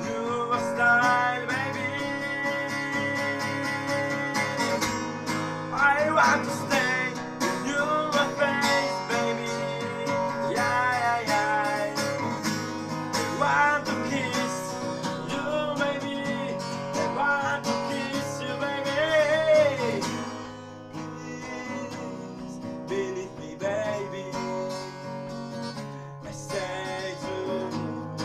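A man sings with his own strummed acoustic guitar, holding long, wavering sung notes over the chords. The music gets quieter about two-thirds of the way through.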